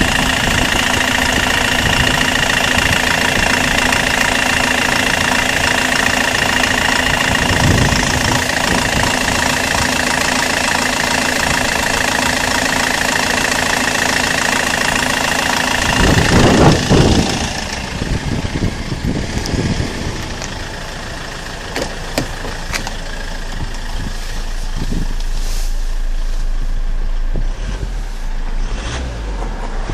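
Toyota Avensis D4D 1CD-FTV 2.0-litre four-cylinder common-rail turbodiesel idling cold, with the rumble the owner hears only when the engine is cold. About halfway through there is a brief loud surge, after which the sound becomes quieter and duller.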